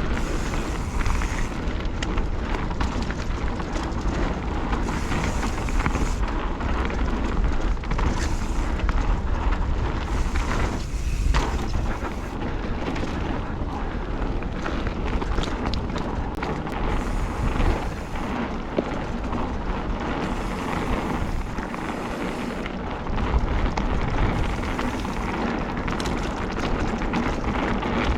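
Knobby mountain-bike tyres (Schwalbe Magic Mary front, Hans Dampf rear) rolling over a dirt trail, with wind rumbling on the action camera's microphone and scattered short knocks as the bike goes over bumps.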